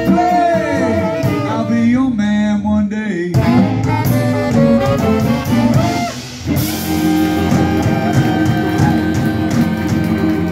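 Live blues band of electric guitars, bass, drums, harmonica and two saxophones playing, with bending lead lines over the groove. About six and a half seconds in, the band settles onto a long held closing chord with a wash of cymbals.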